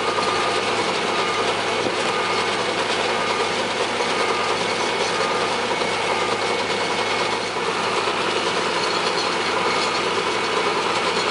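Farm tractor engine running steadily while it pulls a round baler, with the baler's machinery working.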